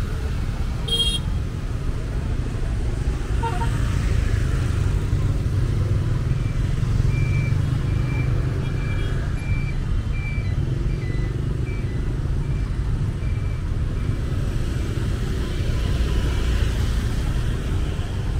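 Street traffic: car and motorbike engines idling and passing, a steady low rumble. From about seven seconds in, a vehicle gives a run of short high electronic beeps, one after another, until shortly before the end.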